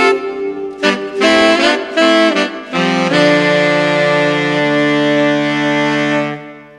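Instrumental background music: a few changing notes, then a long held chord that dies away near the end.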